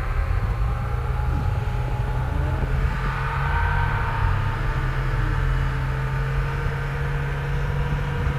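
Ford F-250 pickup's engine running under load as the truck works across a snowy slope: a steady low drone with a faint higher whine over it.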